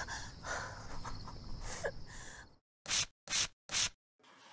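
Night-time outdoor ambience of chirping crickets with faint rustling, cutting off abruptly about two and a half seconds in. Three short hissing bursts follow, about half a second apart.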